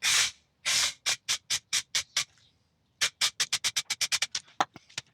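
Aerosol can of spray contact adhesive hissing in short squirts: two longer sprays, then a run of quick bursts about four a second, a brief pause, and a faster run of about eight a second.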